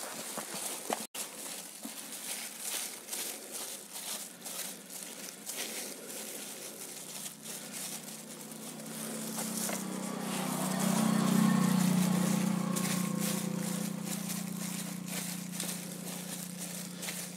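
Thin disposable plastic gloves crinkling and rustling with small clicks as gloved hands work on a goat's wound. About halfway through, a low steady drone swells up, becomes the loudest sound, then slowly fades.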